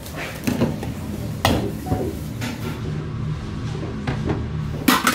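Kitchen clatter: a few sharp knocks and clinks of dishes and a steel rice bowl on a stainless steel counter, the loudest near the end, over a steady low hum.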